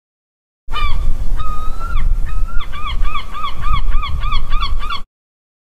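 Seagull calling: a few drawn-out cries, then a fast run of short repeated cries, about six a second, over a low rumble. The calls start suddenly about a second in and cut off near the end.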